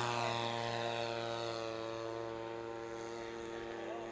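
Radio-controlled model airplane engine running at a steady high speed, slowly getting quieter.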